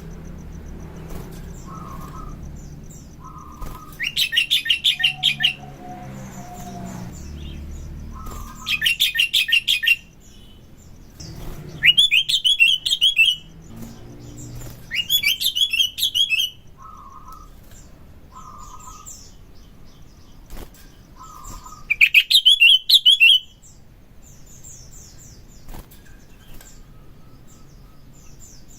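Sooty-headed bulbul (kutilang) singing: about five loud bursts of rapid, repeated high notes, each lasting about a second and a half, with short lower notes in between. These are the fast rattling 'tembakan' song phrases.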